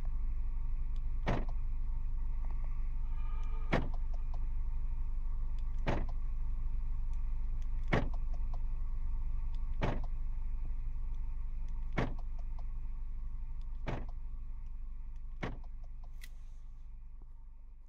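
Skoda Superb's engine idling, heard from inside the cabin as a steady low hum, with a sharp click about every two seconds. The sound fades out near the end.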